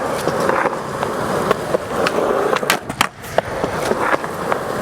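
Skateboard rolling on wet skatepark concrete, the wheels giving a steady rolling rumble broken by several sharp clacks of the board hitting the ground.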